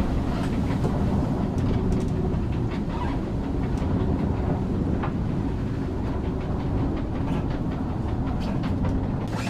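Steady low rumble and rushing noise aboard an offshore racing yacht sailing hard, with a few faint clicks and knocks.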